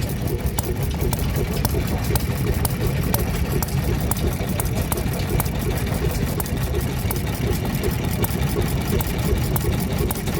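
Vintage stationary engines running together: a steady low engine rumble with many sharp, uneven ticks and clicks layered over it.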